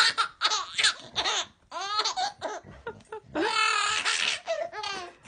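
A baby laughing in a string of short, high-pitched bursts, the longest coming a little over halfway through.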